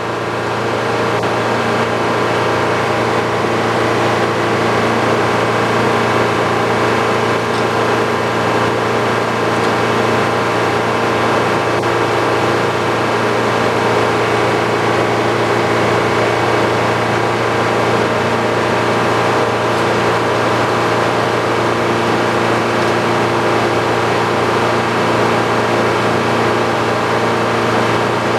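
Old Frick sawmill's power unit running steadily at an even speed, with a constant hum and no change in load.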